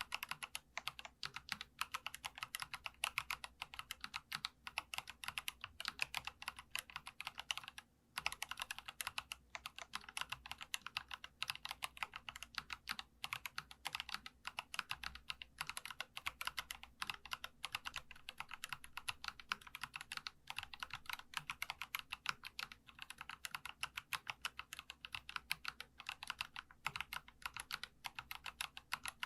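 Fast, continuous typing on a Geekstar custom mechanical keyboard, giving a light, crisp clacking (the 'dogak-dogak' sound), with a short pause about eight seconds in.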